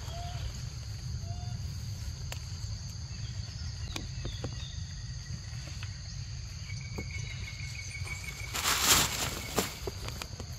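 Insects droning steadily at a high pitch over a low rumble, with a few short bird chirps and a brief loud rustle about nine seconds in.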